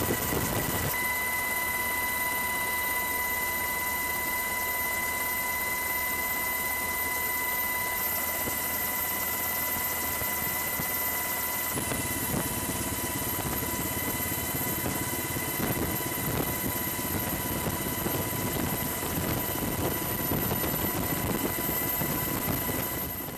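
Helicopter running steadily, heard from aboard the aircraft: a constant engine and rotor noise with a steady high whine. It fades out near the end.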